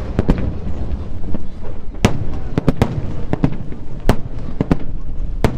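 Water-launched starmine fireworks: a rapid, irregular barrage of shells bursting with sharp bangs, several per second at times, over a continuous low rumble of echoing booms.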